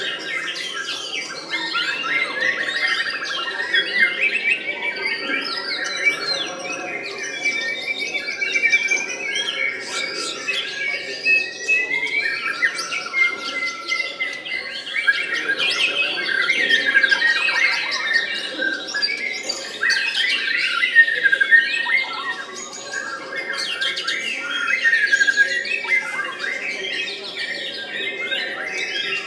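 White-rumped shama (murai batu) singing without a break: a dense, varied run of quick whistles, fast trills and sharp chattering notes.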